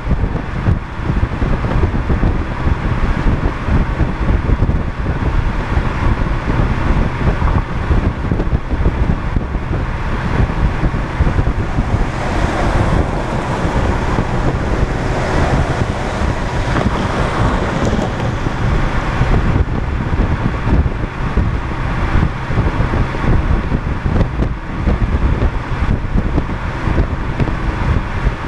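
Wind buffeting on the camera microphone over tyre and road noise of a car driving at highway speed. A louder rush builds and fades about halfway through as a tractor-trailer runs alongside.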